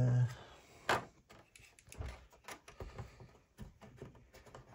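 A utility knife scoring along the edge of a white sheet held against a straight edge, heard as faint, repeated short scratches. A sharp click comes about a second in.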